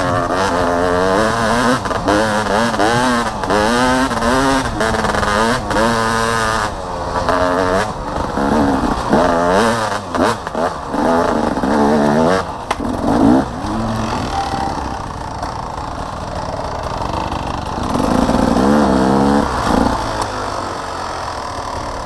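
Dirt bike engine heard from the rider's helmet camera, revving up and down as it is ridden over a rough dirt trail, with knocks and clatter from the bumps. About two-thirds of the way in it settles into a steadier, lower running sound.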